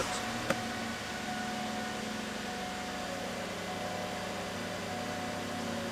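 Steady hum of a 2014 Cadillac XTS just switched on with its push-button start: the engine idling and the climate fan running, with one small click about half a second in.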